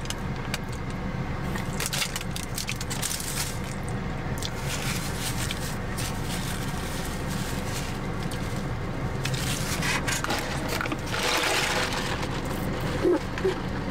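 Close-up eating sounds: chewing with small crunches and mouth clicks over a steady low hum in a car cabin. About eleven seconds in comes a sip of iced drink through a straw.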